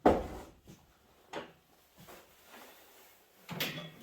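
Sharp knocks and clanks from the metal housing of an old microwave as its front plate is worked loose: a loud one right at the start, a smaller one about a second and a half in, and another near the end.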